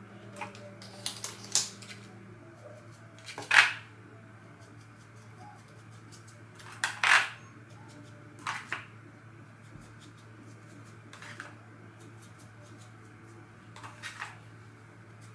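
Scattered short rustles and clicks of hands and a tint brush working through hair, the two loudest about 3.5 and 7 seconds in, over a steady low hum.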